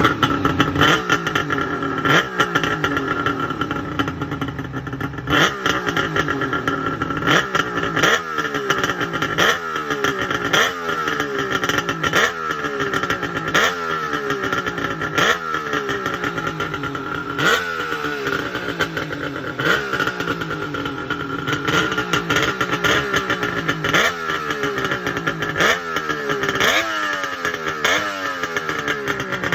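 Suzuki GT550's air-cooled two-stroke triple, breathing through a collector-type expansion chamber with a modified silencer, revved in short sharp blips about once a second, the revs sliding back down after each.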